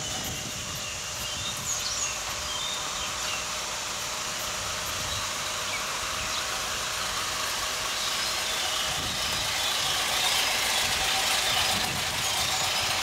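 A motor vehicle's engine running steadily, growing a little louder in the last few seconds.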